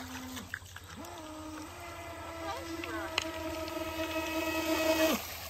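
Electric motor of a Cheerwing RC racing boat whining as the boat runs across the water. The pitch steps up with the throttle and holds high for several seconds, then drops away and cuts off near the end.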